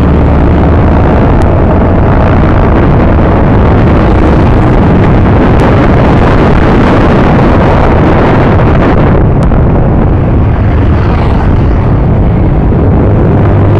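Loud wind rush and buffeting on the microphone of a camera on a moving motorcycle, with the motorcycle's engine running underneath. The engine's steady hum shows most clearly near the start and near the end.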